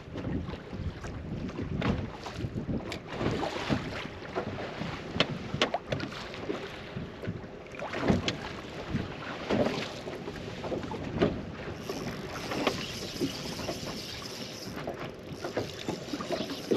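Choppy waves slapping irregularly against the hull of a bass boat, with wind buffeting the microphone. A higher steady hiss joins about twelve seconds in.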